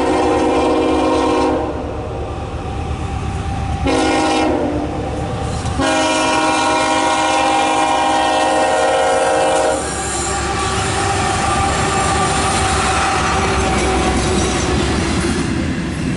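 Freight locomotive horn sounding the grade-crossing signal on a loaded CSX coal train: a blast ending about a second and a half in, a short blast around four seconds in, then a long blast of about four seconds. After the horn the locomotives and cars pass close by with a steady rumble of engine and wheels on the rails.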